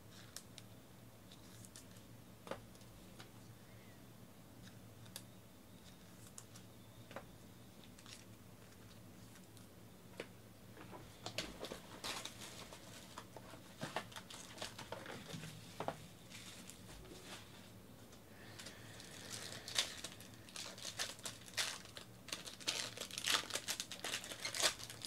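A few faint clicks of cards being handled, then from about eleven seconds in the crinkling and tearing of plastic shrink wrap being pulled off a card box, growing louder near the end as a silver foil card pack is crinkled open.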